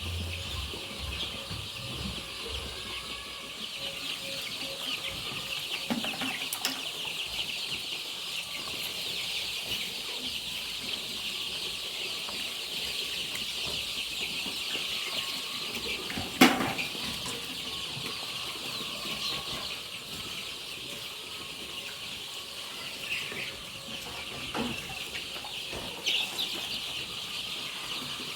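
A flock of young Bovans Brown pullets, about four weeks old, chirping and peeping together in a dense, steady chatter. A single sharp knock sounds a little past halfway through.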